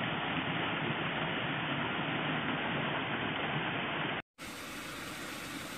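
Steady rushing of an artificial wall waterfall pouring into a pond. A little over four seconds in it cuts off suddenly and is followed by a quieter, steady hiss.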